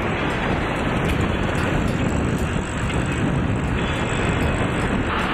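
Steady road rumble and wind noise of a moving vehicle.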